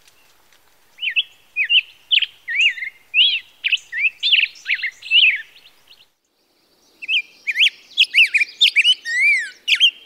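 Male black-headed grosbeak singing: a run of whistled, warbled phrases that sound at first like an American robin's song but in a different pattern. The song comes in two bouts, the first fading about halfway through and the second starting about a second and a half later.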